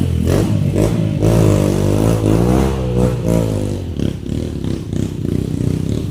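Trail motorcycle engines running and revving, the pitch climbing and falling unevenly for a couple of seconds, with some clattering knocks.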